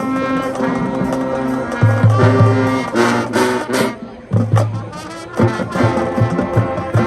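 High school marching band playing, brass led: the horns hold chords with heavy low-brass notes, then settle into a steady beat about two-thirds of the way through.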